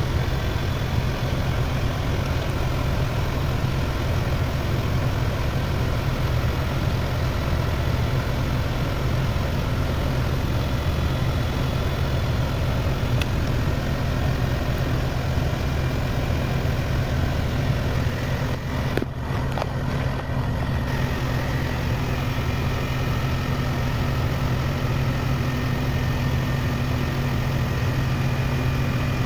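Packaged heat pump unit running in heat mode, its compressor and fan giving a steady hum, to thaw an iced-up coil.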